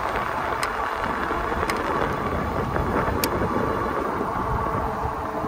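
Wind rushing over the microphone and road noise of a moving ebike, with car traffic on the road and a few sharp ticks.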